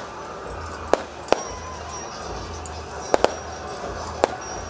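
Sharp cracks of staged-battle sound and pyrotechnic effects: five in all, two in quick succession about three seconds in, over a low rumbling music bed.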